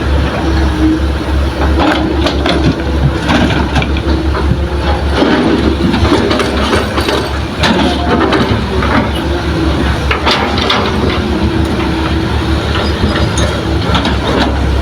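Diesel engines of heavy earthmoving machinery (Hitachi excavator and dump truck) running steadily, with frequent knocks and clatters of soil and rock being loaded.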